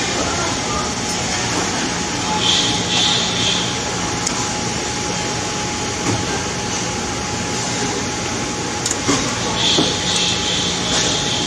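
Steady rumbling background noise with a constant hum, broken by a few faint short knocks and, twice, a brief high-pitched sound.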